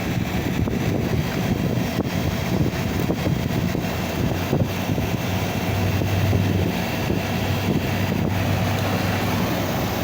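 Air conditioner with a newly replaced compressor running steadily during refrigerant charging: a constant mechanical hum and fan-like rush, with the low hum swelling for a couple of seconds past the middle.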